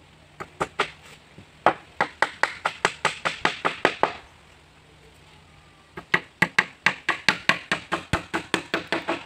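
Steel hammer driving nails into a wooden boat plank: two runs of quick, sharp blows, about five a second, with a pause of about two seconds between them.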